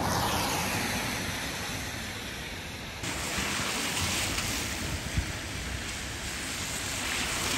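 Strong wind rushing, a steady roar across the microphone, stepping up abruptly about three seconds in.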